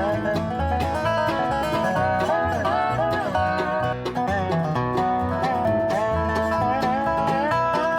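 Background music in a bluegrass style, banjo and guitar picking over a steady bass beat.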